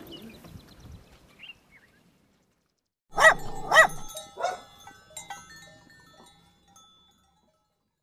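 A dog barking: two loud barks about half a second apart, a third a moment later, then a few fainter ones, with an echoing tail.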